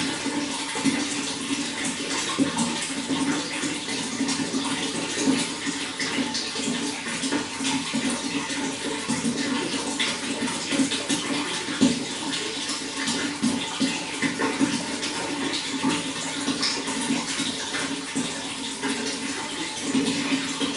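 Water running steadily, a continuous splashing flow like a tap or stream pouring into water.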